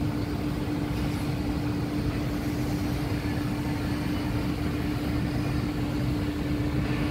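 Carrier air-cooled chiller running: a steady machinery hum with one constant mid-low tone over a low rumble.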